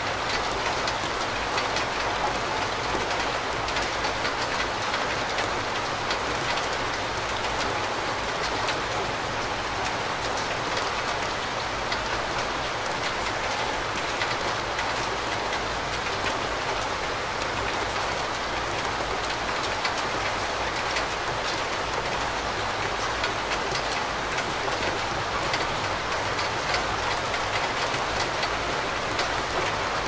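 Steady rain falling: a dense, even patter of drops with a low rumble underneath.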